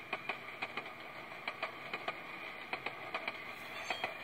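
SoundTraxx SoundCar decoder in a model coal car playing its rolling sound through a small speaker, set going by the throttle: wheel clicks over rail joints, mostly in close pairs, every second or less, over a steady rolling noise.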